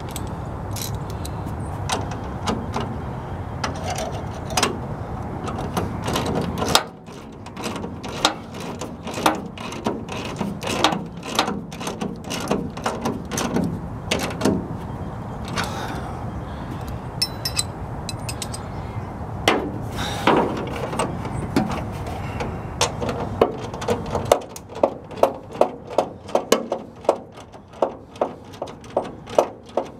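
Ratchet wrench clicking as a nut is tightened on the filler neck's mount bolt, in uneven strokes at first, then a steady run of about three clicks a second near the end. A low steady hum underneath stops about seven seconds in.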